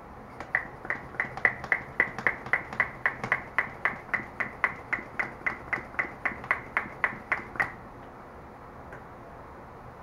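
Bicycle mini hand pump inflating a freshly mounted mountain-bike tyre: about 25 quick, even pump strokes, three to four a second, each a short puff of air through the valve, stopping abruptly after about seven seconds.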